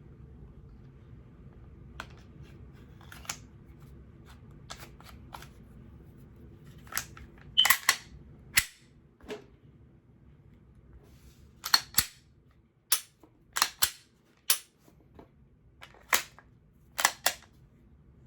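Sharp metallic clicks and snaps of a Glock 22 pistol being put back together and worked as its reassembly is finished, in irregular single clicks with the loudest cluster about eight seconds in and a run of them from about twelve to seventeen seconds in.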